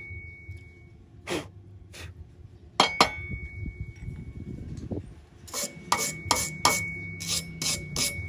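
Metal tapping on a welded galvanized steel square tube, which rings with a thin high note after some strikes. A few separate knocks come first, then a run of about a dozen quicker taps, roughly four a second, in the second half.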